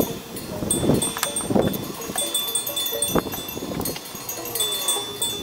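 Several knocks and clinks of hand work at the speedometer cable fitting, with high chime-like ringing tones that start and fade throughout.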